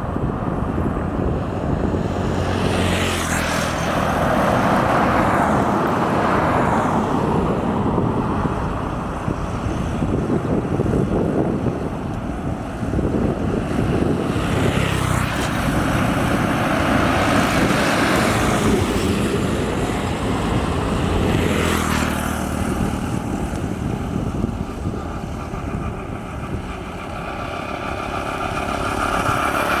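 Motor vehicle noise, swelling and fading several times as vehicles go by, over a steady rumble.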